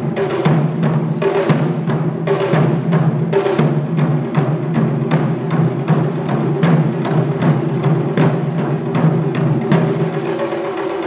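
Japanese taiko ensemble playing: several barrel-shaped nagado-daiko drums struck with wooden sticks in a fast, steady rhythm of deep, booming strokes.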